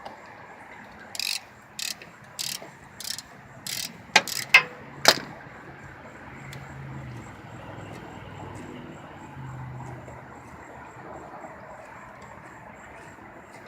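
Ratchet on a 14 mm socket turning a brake caliper bolt: about six short ratcheting strokes, one every half second or so, then three sharp metallic clicks about four to five seconds in.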